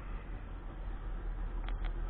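Steady low rumble and hiss of wind and lapping water, with two short faint clicks near the end.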